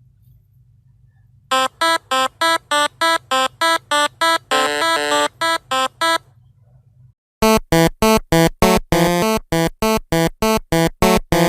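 A duck quacking in two long runs of rapid, evenly spaced, nasal quacks, about three a second, with a short break between the runs.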